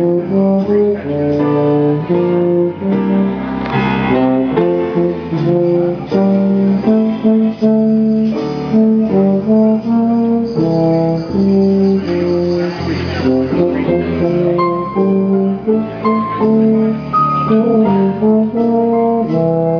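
Tuba and euphonium ensemble playing Christmas music in several-part harmony, low brass notes moving in chords.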